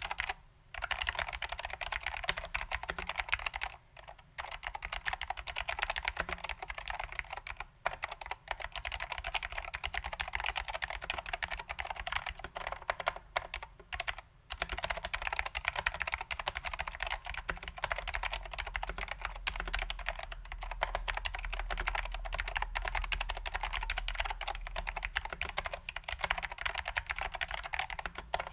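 Fast, continuous typing on a custom 60% mechanical keyboard: SKCM Salmon Alps switches lubed with Finish Line dry lube, ALPS doubleshot keycaps, in a BBOX 60 case. The rapid keystrokes break off for a few brief pauses, about 4, 8 and 14 seconds in.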